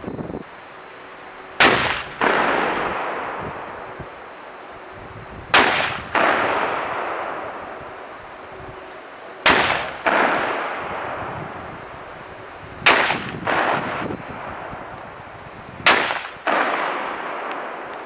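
Five gunshots, three to four seconds apart. Each is a sharp crack followed about half a second later by a second report and a long rolling echo that fades over a couple of seconds.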